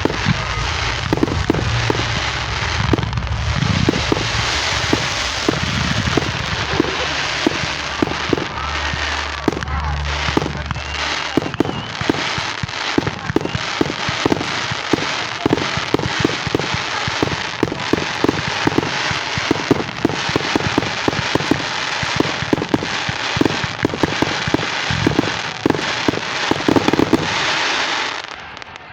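Fireworks crackling and popping without a break, a dense rapid stream of small bangs with deeper rumbling booms in the first third. It dies away near the end.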